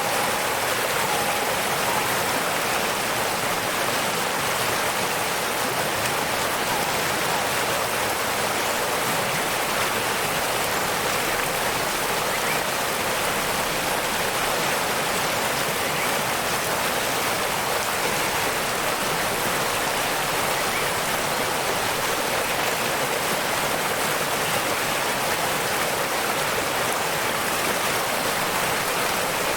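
Waterfall water rushing steadily: an even, unbroken hiss that sits mostly in the upper range, with little low rumble.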